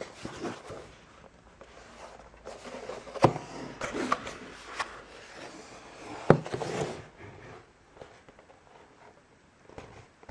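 Cardboard retail box being handled and turned over, rubbing and scraping, with two sharp knocks about three and six seconds in as it is put down on a wooden table. Quieter after about seven seconds, with only a few faint taps.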